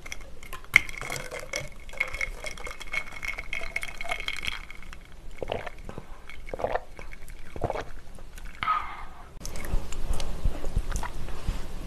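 Ice rattling and clinking in a glass jar of calamansi drink as it is stirred with a straw, with a sharp clink about a second in. Then close-up sipping through the straw and swallowing.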